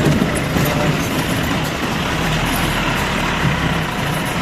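Jeep engine running steadily with road noise on a rough off-road hill climb.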